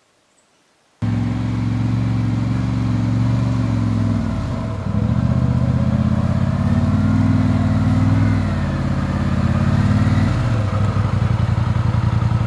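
ATV engine running as the quad is driven up a dirt track, its pitch rising and falling with the throttle and easing off twice. It starts suddenly about a second in.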